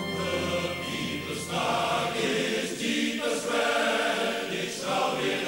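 A choir of many voices singing in phrases.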